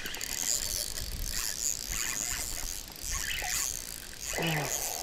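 Spinning reel being cranked while a hooked pike is played in, with an uneven mechanical whirring and ticking. A short vocal grunt is heard near the end.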